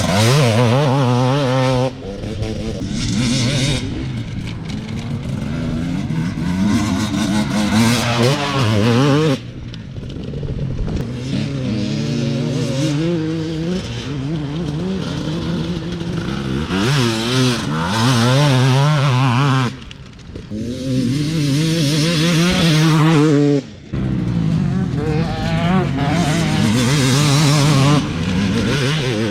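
Husqvarna TE300 two-stroke enduro engine with a Fresco exhaust pipe, revving up and falling back again and again, with several sudden dips in level as the throttle is chopped.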